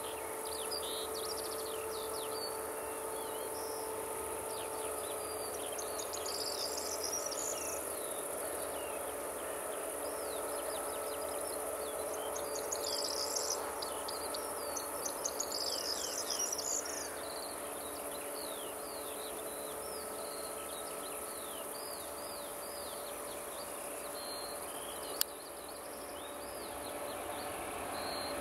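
Distant jet engines of a taxiing Boeing 757-300 humming steadily at idle, heard under birdsong of many quick falling chirps and a steady high insect buzz from the grass. A single sharp click comes near the end.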